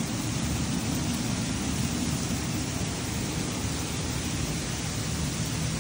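Steady rain falling on tarpaulin sheeting overhead: an unbroken rushing noise, heaviest in the low end.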